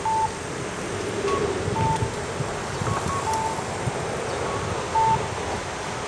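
Electronic two-tone chime repeating about every one and a half seconds: a short higher beep followed by a longer lower one, over a low rumble of wind or traffic.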